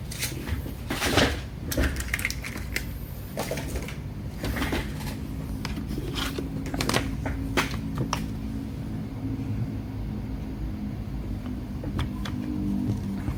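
Laptop being handled: a run of sharp plastic clicks and knocks over the first eight seconds or so, with a low steady hum coming in about five seconds in.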